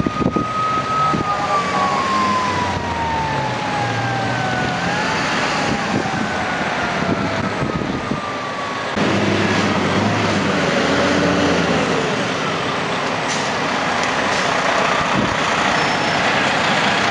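Fire truck siren winding down, its pitch falling slowly over about six seconds, over the rumble of idling fire truck engines.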